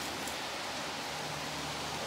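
Steady background hiss of wind moving through the woods, even and unbroken, with a faint low hum beneath it.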